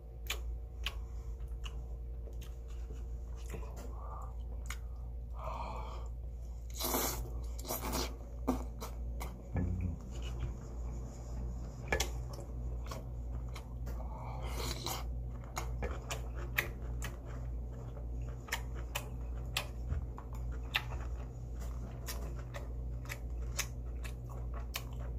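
Close-up mouth sounds of someone chewing marinated pork ribs: irregular wet smacks and clicks, over a steady low hum.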